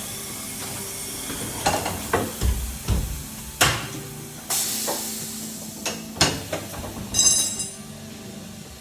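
Tyre-fitting work: a series of sharp knocks and clanks from tools and the wheel over a steady hiss, with a brief rapid rattle about seven seconds in.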